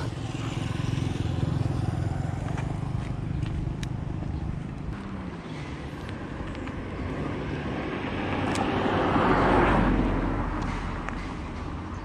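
Small motorcycle engine passing on the road, its steady hum fading away over the first few seconds. Then another vehicle passes, a rush of noise that swells to its loudest about nine or ten seconds in and dies away.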